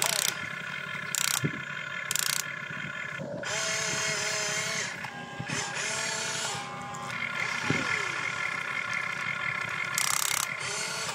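RC excavator's electric motors and gearboxes whining as it digs, raises its boom and swings, the pitch stepping and gliding as each movement starts and stops. Several brief bursts of noise come near the start and again about ten seconds in.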